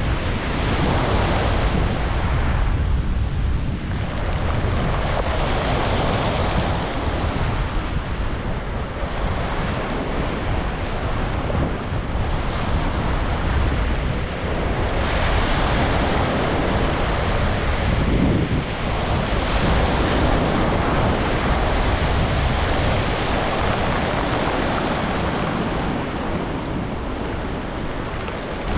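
Sea waves breaking and washing up a beach, the surf swelling and easing every few seconds over a constant low rumble.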